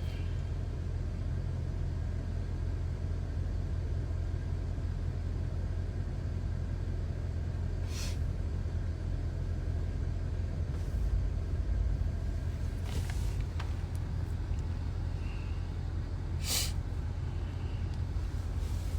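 Steady low rumble of a car driving, engine and road noise, with a few brief clicks about 8, 13 and 16 seconds in.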